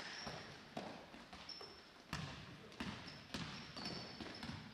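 A basketball bouncing on a gym floor: a few irregular dribbles, with short high-pitched sneaker squeaks on the court in between.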